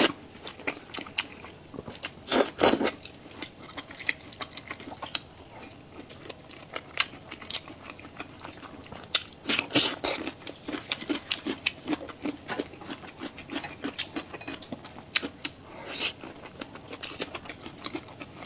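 Close-miked eating: chewing with many small, irregular wet mouth clicks, and a few short slurps, about two and a half, ten and sixteen seconds in.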